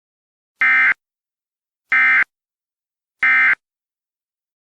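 Emergency Alert System end-of-message code: three short bursts of digital data tones, about 1.3 s apart, marking the end of the alert.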